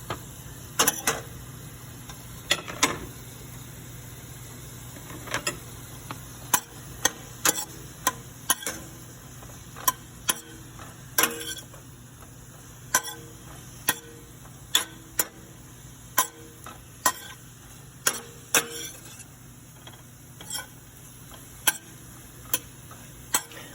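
A cooking utensil knocking against a pan while broccoli florets are stirred as they sauté: sharp, irregular clacks about once a second over a steady faint sizzle.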